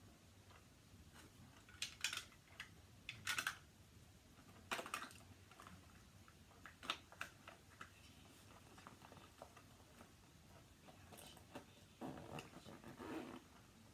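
Faint handling noises of small objects and a zippered fabric pouch being handled: a few short rustles and clicks, then a longer scratchy rustle near the end.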